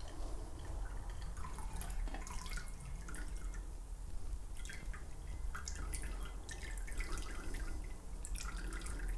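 A thin stream of stirred cocktail trickling from a jar through its strainer lid into a martini glass, with scattered faint clicks of ice in the jar.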